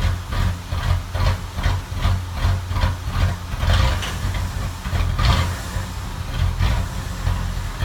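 A 2007 Ford Crown Victoria's brake pads are rubbing on the disc, a scraping swish that repeats about two to three times a second with each wheel turn and fades out about five seconds in. The engine hums steadily underneath. The cause is a rusted parking-brake cable that holds the pads against the disc.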